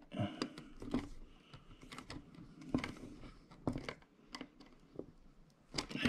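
Screwdriver tightening a brass terminal screw on a plastic Wi-Fi wall switch. Irregular light clicks and scrapes come from the tip working in the screw head and the switch being handled.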